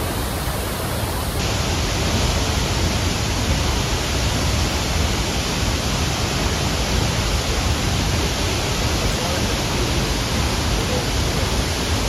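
La Fortuna Waterfall's falling water making a loud, steady rushing noise with a deep rumble underneath. It turns brighter and hissier about a second in.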